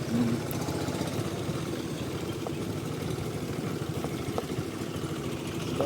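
Aprilia SR 160 scooter's single-cylinder engine running steadily at low revs.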